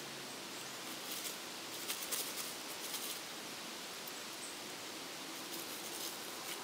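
Faint steady hiss with a few soft rustles and clicks, clustered about one to three seconds in and again near the end.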